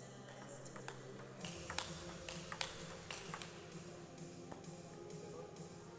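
Table tennis ball being struck by the bats and bouncing on the table in a short rally: a run of sharp clicks about three a second, from about a second and a half in until about three and a half seconds.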